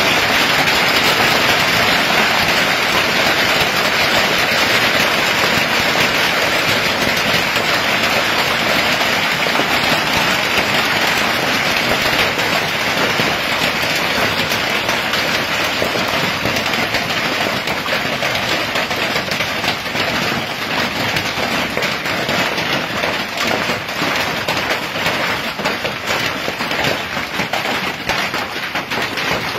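Hailstorm: hail and heavy rain pelting down as a dense, steady clatter, heard from under a covered porch. It eases slightly, with more separate hits standing out near the end.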